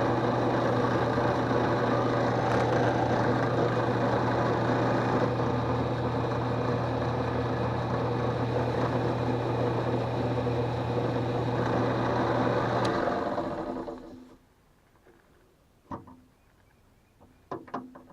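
Drill press motor running steadily with a low hum, spinning a wooden ring while a beeswax and linseed oil finish is worked in. About thirteen seconds in it is switched off and spins down to quiet, followed by a few light knocks near the end.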